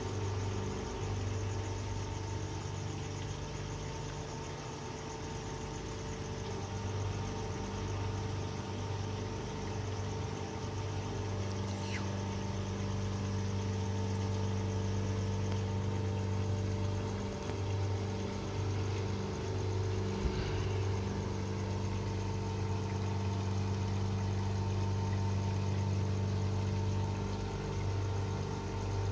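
Steady low mechanical hum, even and unchanging, with no thunder.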